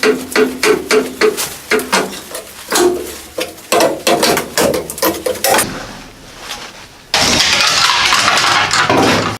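Hammer blows on sheet steel, each strike ringing, about four a second at first and then irregular. A loud, steady, harsh hiss of a power metalworking tool starts suddenly near the end and cuts off abruptly.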